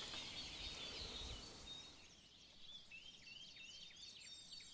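Faint chorus of several songbirds singing, many short chirps and trills overlapping, with a low rumble beneath for the first couple of seconds.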